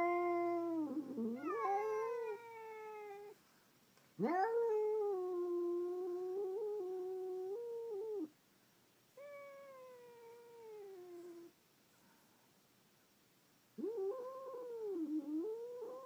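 Domestic cats caterwauling in a territorial standoff, an indoor cat and an outdoor cat facing off through a glass door. There are four long, drawn-out yowls that waver in pitch, with short pauses between them, and the third is quieter than the rest.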